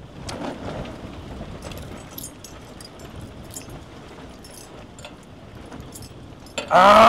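Faint, scattered clinks of heavy metal bracelets and rings knocking together and against a steel platter as fish is picked apart by hand, over a steady low hiss. Near the end a man gives a short voiced exclamation.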